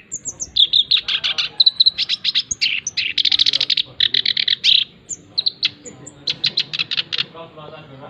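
Male black-browed reed warbler (kerak basi alis hitam) singing a fast, varied song of rapidly repeated chattering notes and short trills, breaking off about seven seconds in.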